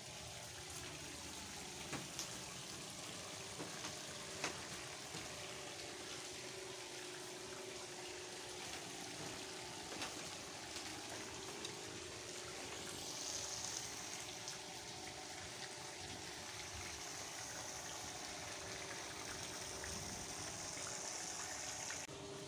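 Steady running, trickling water, with a few light knocks over it.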